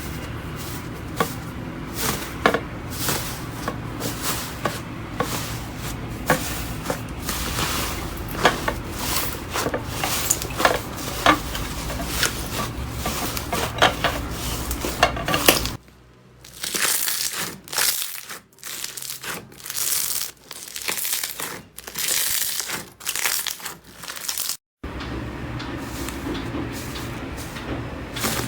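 Slime being squeezed and worked by hand, crackling and popping with many small sharp clicks. The sound changes abruptly about two-thirds of the way in to louder, separate squishing and rustling bursts, then changes again near the end.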